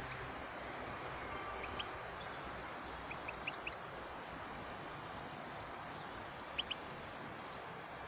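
Goldfinch giving short, high chirps in small clusters of two to four, over a steady hiss.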